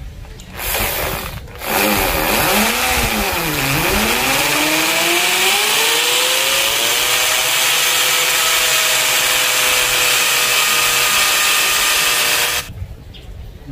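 Corded electric hammer drill with a masonry bit boring into a masonry wall: a short burst, then about ten seconds of continuous drilling. The motor's pitch sags under load a few seconds in, then climbs back and holds steady until it stops shortly before the end.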